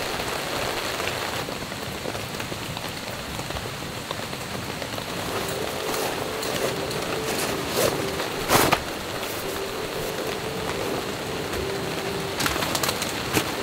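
Steady rain pattering on a camping tarp overhead. From about five seconds in, a bird calls with low held notes on and off. A few sharp knocks and rustles of camping gear being handled come through, the loudest a little past the middle and a quick cluster near the end.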